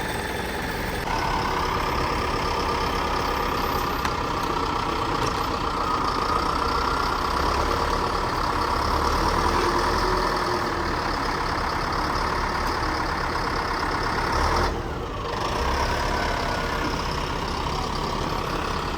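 An engine running steadily, with a short dip and a falling pitch near the end before it picks up again.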